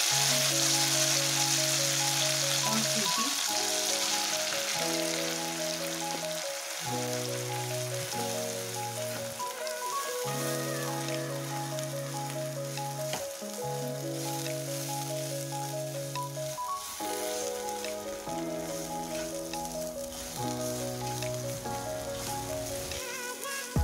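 Ground spinach sizzling in hot ghee in a nonstick pan as a wooden spatula stirs it; the sizzle is loudest in the first few seconds, then dies down. Background music of slow held chords with a light repeating melody plays throughout.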